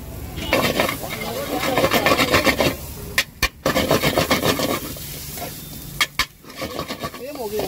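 Slotted metal spatula scraping and chopping scrambled eggs against an iron pan, a fast rasping clatter of strokes. A few sharp clanks come as the spatula strikes the pan, around the middle and again near the end.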